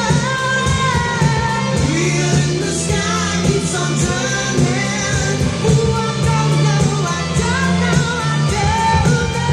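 Upbeat 1980s pop song: a vocal melody over a steady drum beat.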